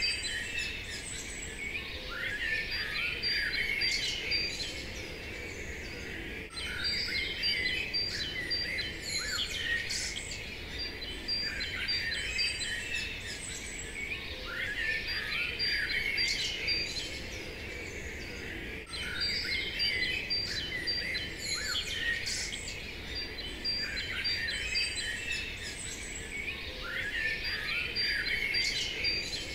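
Several small birds chirping and singing, with a recurring high dotted trill. The same few seconds of birdsong repeat about every six seconds, the mark of a looped ambience recording.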